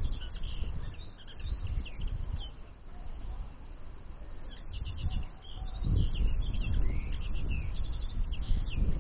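Small songbirds chirping and twittering in short quick bursts, thinning out for a couple of seconds in the middle, over an uneven low rumble.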